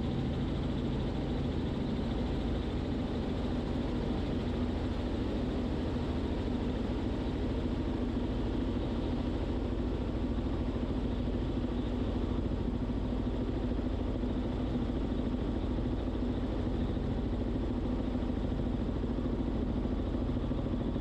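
Robinson R44 Clipper II helicopter in flight, heard from inside the cabin: the steady drone of its six-cylinder Lycoming piston engine and rotors, with a constant low hum.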